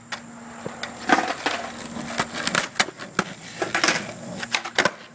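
Skateboard clacking on concrete during ollie attempts: the wooden tail popping and the wheels knocking down on the ground in a string of sharp, irregular knocks. The loudest come about a second in and again between three and five seconds.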